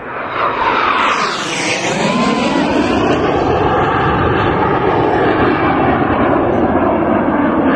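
Frecce Tricolori Aermacchi MB-339 jet trainers, single-turbojet, flying low overhead as the formation breaks apart in a bomb-burst. A loud jet roar comes on at once and sweeps down in pitch about a second in, then holds loud while its pitch rises and falls in long waves as the jets pass and spread out.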